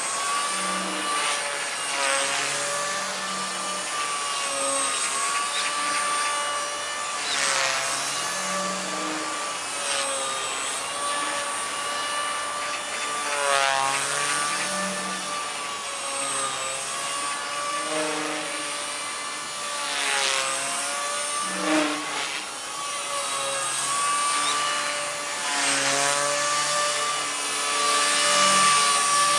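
Gaui Hurricane EP200 v2 electric RC helicopter in flight: a steady motor and gear whine whose pitch drifts up and down as the throttle and rotor load change, with a whooshing rotor rush swelling now and then.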